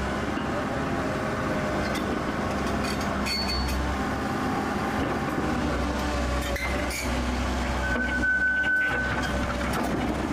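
Heavy engine noise running steadily with a deep hum, typical of diesel machinery or heavy vehicles at a worksite. A brief high steady whine sounds for about a second and a half near the end.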